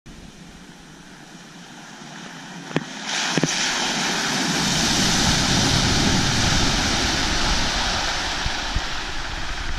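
Jeep Wrangler Rubicon driving through a deep mud puddle: engine rumble under a loud rush of splashing, spraying water that starts about three seconds in and keeps on, with two sharp knocks just before it.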